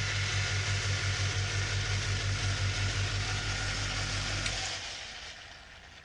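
Refrigerator compressor, started by the thermostat switch, running with a steady low hum that pulses slightly about four times a second, with a faint higher whine over it. About four and a half seconds in it stops with a click and the hum dies away.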